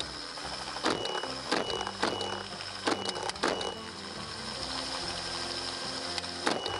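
Helicopter running steadily overhead while rifle shots are fired from it: five quick cracks in the first few seconds, then one more near the end.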